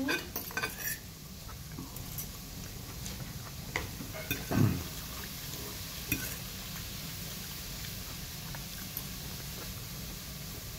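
Metal fork clinking and scraping on a plate of rice, a few scattered clicks, with one short low sound about halfway through.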